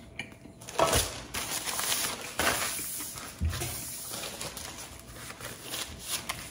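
Paper napkin rustling in several short bursts as it is pulled out and wiped across a countertop, with a low thump a little past the halfway mark.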